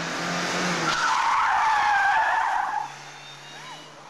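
A car's tyres squealing loudly for about two seconds as it is slid hard across the tarmac in a stunt-driving skid, with tyre smoke. The engine runs under it, and after the squeal cuts off it settles to a lower, steady note.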